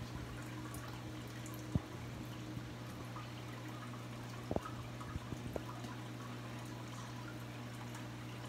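Reef aquarium water circulation: water trickling and splashing over a steady low hum. There is a sharp click about two seconds in and a few lighter clicks around the middle.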